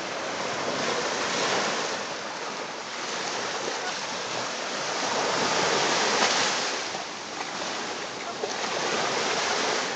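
Small sea waves breaking and washing up a sandy shore, the rush swelling and easing every few seconds.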